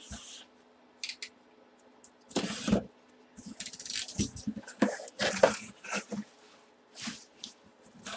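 Cardboard shipping box being opened by hand: flaps scraping and rustling, with bubble-wrap packing crinkling, in short irregular bursts. The loudest burst is about two and a half seconds in.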